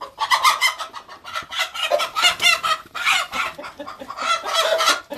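Chickens squawking noisily in a fast run of repeated calls, disturbed as a hen is grabbed and pulled out of the pen.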